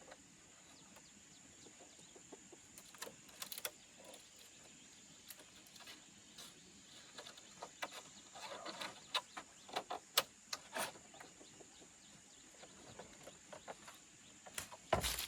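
Chickens clucking here and there, among scattered short clicks and rustles, with a louder burst of sound near the end.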